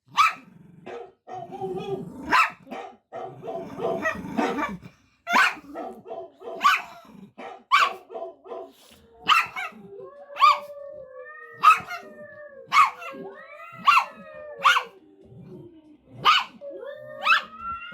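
A dog barking, one bark about every second, agitated at a sound it dislikes. About ten seconds in, a long wavering tone that glides up and down joins under the barks.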